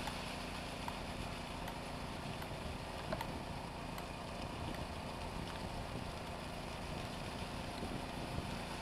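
Engine of a ride-on power trowel running steadily as it floats a fresh concrete slab, with a couple of brief small clicks.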